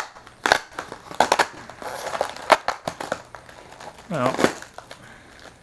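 Drone packaging being pulled open and handled: a series of sharp crackles and crinkles.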